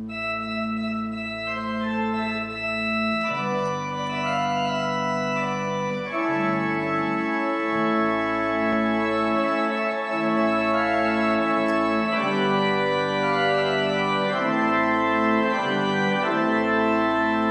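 Pipe organ playing sustained full chords over deep bass notes, the chords changing every second or two.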